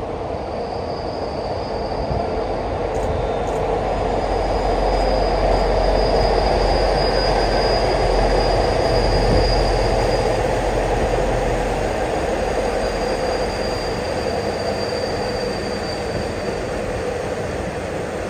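Diesel-hauled passenger train running past on an elevated viaduct: a dense rumble that swells to a peak in the middle and then fades. A thin, high squeal from the wheels comes and goes throughout.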